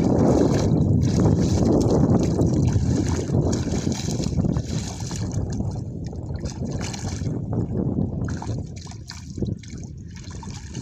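Shallow muddy water sloshing and splashing as a person wades and gropes with both hands under the surface, loudest at first and dying down near the end.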